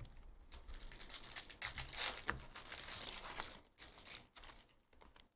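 Trading card pack wrapper crinkling and tearing as it is ripped open, with cards handled. The crackle runs for about three and a half seconds, then gives way to a few soft clicks near the end.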